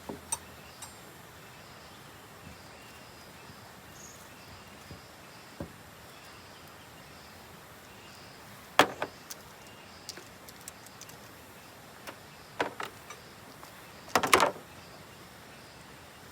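Occasional sharp knocks and clicks of camping gear being handled. The loudest comes about nine seconds in, and a short rattling cluster follows about fourteen seconds in.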